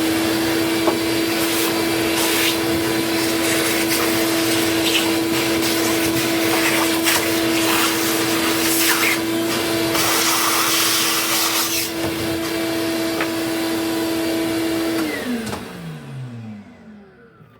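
An electric blower motor, of the vacuum or air-duster kind, runs with a steady whine over rushing air, then winds down and fades out near the end.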